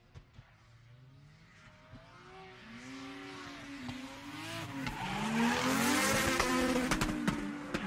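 Car engine revving, its pitch rising and falling and getting louder, with tyre squeal building toward the end as the car drifts.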